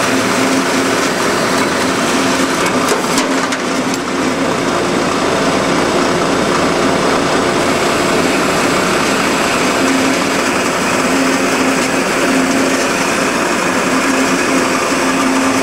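Kalamazoo AH9AW horizontal band saw running and cutting through a metal bar dry, without coolant: a steady, loud machine hum with a low steady tone that swells now and then. There are a few clicks about three seconds in.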